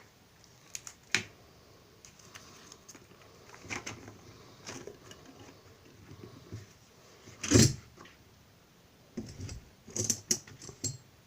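Scattered clicks, light knocks and rattles of small hard objects being handled, with one louder knock about two-thirds of the way through and a quick run of clicks near the end.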